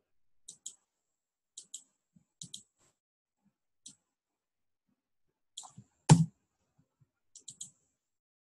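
Computer mouse buttons clicking, mostly in quick pairs of press and release, several times in a row. About six seconds in there is one much louder dull thump.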